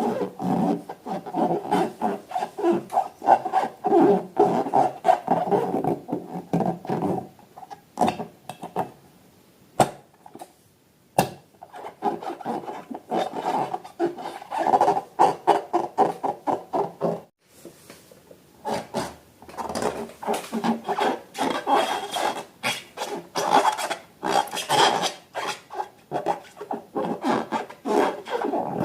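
Rubber balloons being rubbed and squeezed by hand, a fast run of rubbing squeaks and creaks with a few sharp clicks. It pauses briefly twice.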